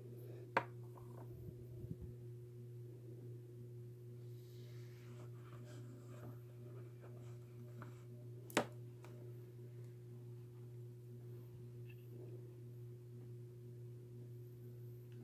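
A steady low hum with a fainter tone above it, broken by two sharp clicks, one about half a second in and one about eight and a half seconds in, with a few faint ticks near two seconds in.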